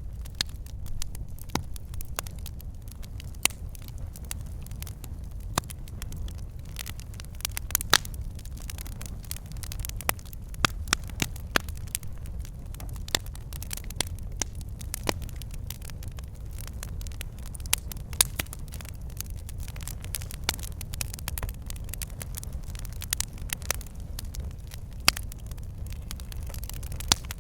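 Wood fire burning in a fireplace, logs crackling and popping: many sharp, irregular pops of varying loudness over a low, steady rumble.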